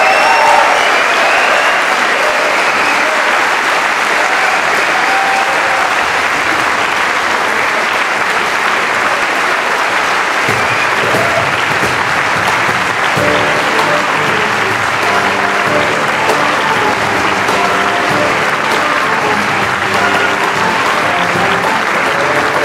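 Audience applauding steadily in a concert hall. About ten seconds in, music starts up beneath the applause and carries on to the end.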